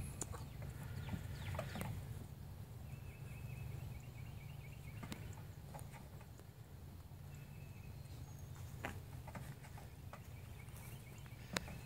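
Scattered light taps of goat kids' hooves on wood as they hop on and off a stump and cable spool, over a steady low rumble. Faint bird calls come in for a couple of seconds near the middle.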